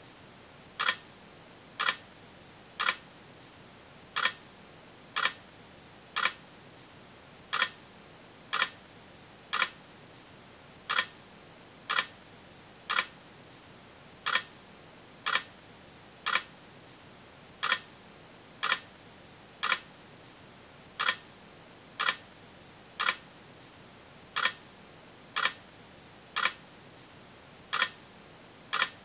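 Sharp clicks repeating about once a second, falling into groups of three with a slightly longer pause after each group, over a faint steady hiss.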